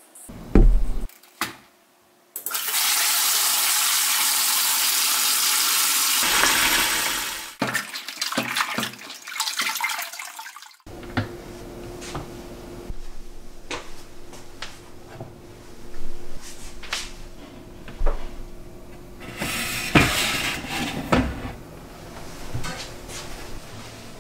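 A kitchen tap running hard into a stainless steel bowl, then broken splashing as cabbage leaves are rinsed by hand. The water cuts off suddenly, followed by quieter knocks and clunks of kitchenware being handled, as a plastic salad spinner is taken from a cupboard. A couple of sharp thumps come right at the start.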